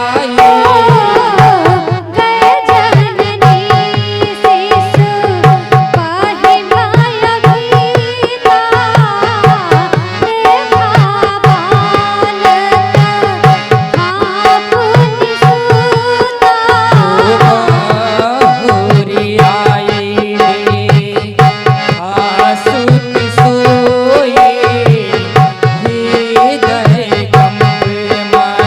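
Indian devotional music: a steady tabla rhythm under a wavering melody line and a held drone.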